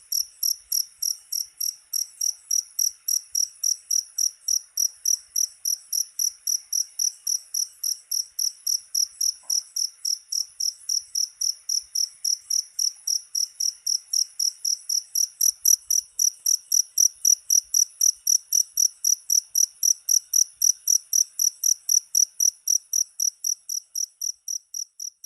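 Cricket chirping in a steady, even rhythm, about three high-pitched chirps a second.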